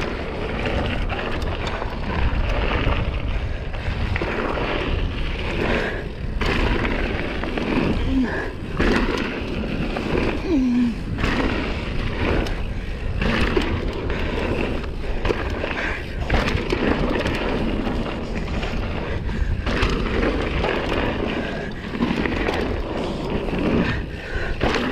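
Mountain bike ridden fast down a dirt jump line: a continuous rumble of knobbly tyres rolling on packed dirt, with rattle from the bike and wind noise, dipping briefly every few seconds.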